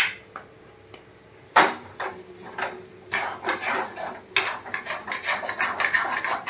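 A spatula knocking and scraping against a steel kadhai as a thick potato filling is stirred. There is a sharp knock about a second and a half in, then quick, continuous scraping from about three seconds on.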